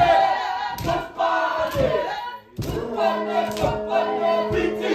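A group chanting and shouting a Māori haka in unison, with rhythmic thumps about once a second from slaps and stamps. The chant breaks off briefly about halfway, and from about three seconds in a steady held note sounds underneath.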